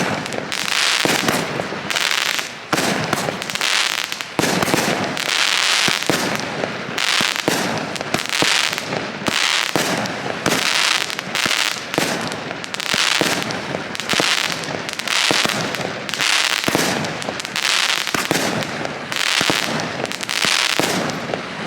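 Consumer fireworks going off in a rapid barrage: sharp bangs and crackles in quick succession, about one burst a second.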